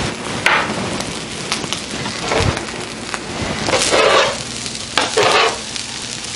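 Fried rice sizzling on a hot electric griddle, with several louder scraping strokes as tongs turn and toss it.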